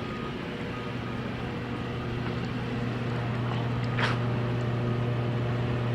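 Steady engine hum, slowly growing louder, with a brief swish about four seconds in.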